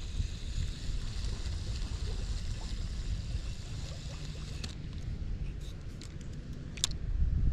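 Wind buffeting the microphone as a steady low rumble, with a few sharp clicks in the second half.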